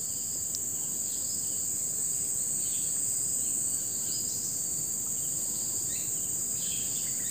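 Steady high-pitched drone of a chorus of insects, with a few faint short chirps scattered through.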